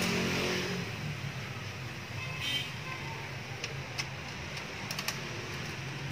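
Scattered small clicks and a brief scrape of plastic as hands fit the base onto the back of a Suzuken AC-05P automatic blood pressure monitor and fasten its screws, over a steady low hum.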